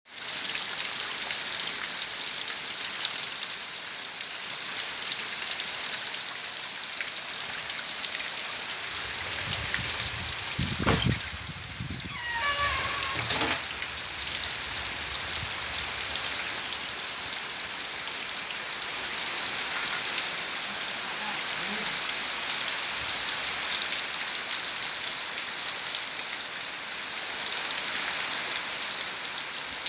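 Heavy tropical downpour, a steady hiss of rain falling on the ground, roofs and trees. A few low thumps come about ten to twelve seconds in, followed by a short wavering pitched sound.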